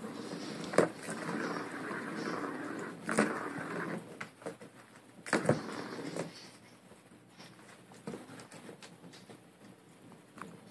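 Plastic ball rattling and rolling around the track of a cat's circular ball-track toy as the cat bats at it, with sharp clacks about a second in, about three seconds in and about five and a half seconds in. After that, fainter scattered taps and ticks.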